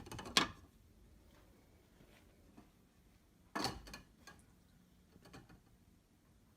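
Two short bursts of knocking and clattering, the first at the start and the second about three and a half seconds later, with a few faint ticks between.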